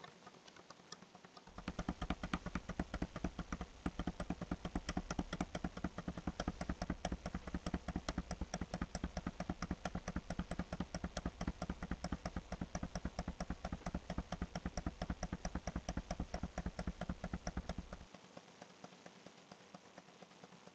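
A computer mouse button clicked rapidly and evenly, several clicks a second, to step a document down the screen. The clicking starts about a second and a half in and stops suddenly near the end.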